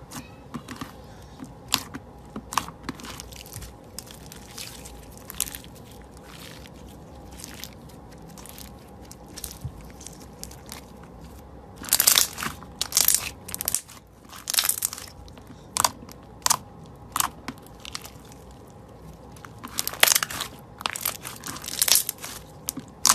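White slime with coloured sprinkles being pressed and squeezed by hand, giving short wet crackles and pops as air trapped in it bursts. The pops come scattered at first, then in louder, denser clusters about twelve seconds in and again near the end.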